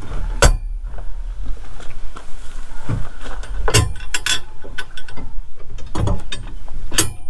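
Metal parts of a steel wheel hoe clicking and clanking as they are fitted together and nuts are started on the bolts: a few sharp knocks, a quick cluster of them about midway, and another near the end.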